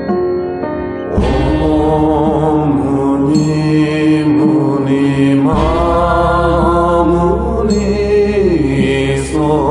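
Background music of a voice chanting a mantra in long, melodic phrases over sustained backing, with a new phrase entering about a second in and another about halfway through.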